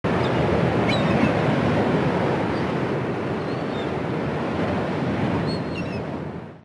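A steady rushing noise of waves, with several short high chirps over it; it fades out quickly near the end.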